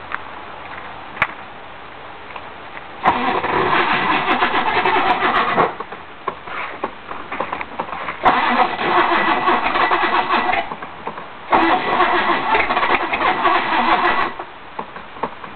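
Sutphen jet boat engine cranked on its starter in three tries of about two and a half seconds each, cutting off abruptly each time without settling into a run.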